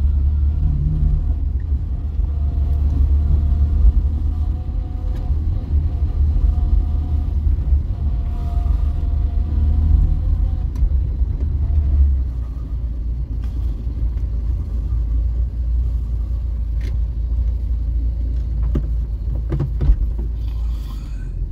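Vauxhall Viva HC on the move, heard from inside the cabin: a steady low engine and road rumble with the engine note rising and falling. The rumble drops a step about twelve seconds in.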